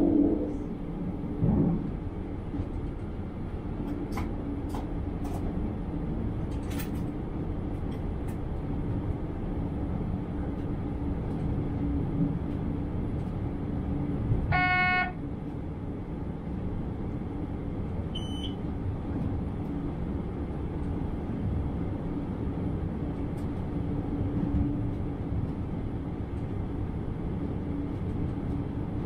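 Diesel multiple unit running steadily along the track, a constant engine drone with wheel and rail noise heard from the cab. It gives one short horn blast about halfway through.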